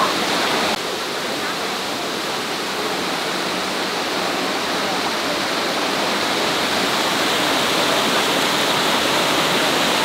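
Waterfall cascading over rocks into a pool, a steady rush of falling water. It dips slightly just under a second in, then holds even.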